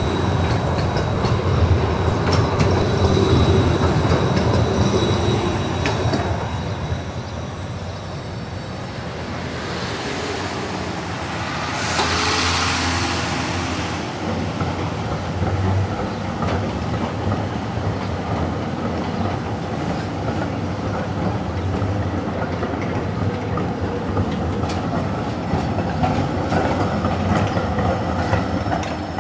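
Basel street trams running past on city track: a steady low rumble of steel wheels with repeated clatter over the rails. A thin high whine early on, and a hiss about ten seconds in that lasts some four seconds.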